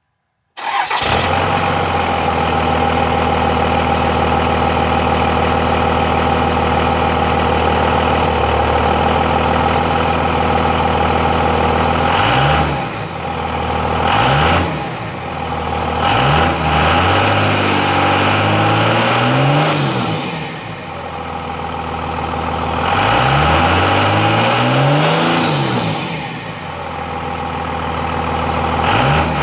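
Stock 24-valve VP44 Cummins 5.9 L inline-six turbodiesel, heard at the tailpipe through a parts-store muffler with a turndown. It idles steadily for about twelve seconds, then is free-revved: three quick blips, then two longer revs that climb and fall back. As each long rev dies away, a high turbo whistle (HY35 with its silencer ring removed) drops in pitch.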